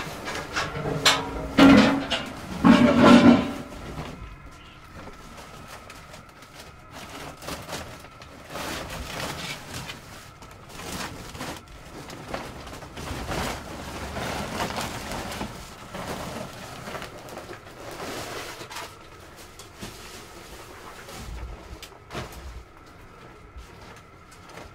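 Handling noise in a cramped storeroom: a cluster of loud clunks with a short creak about two seconds in, then lighter knocks, clatter and rustling as things are moved on shelves, over a faint steady tone.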